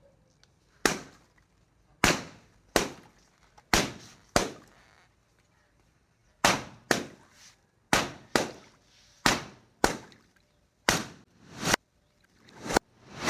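Water-filled balloons bursting one after another: about fourteen sharp pops at uneven intervals, each dying away quickly.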